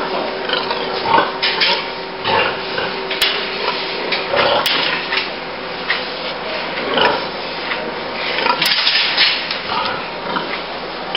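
Sows grunting and calling in irregular bursts over a steady hum.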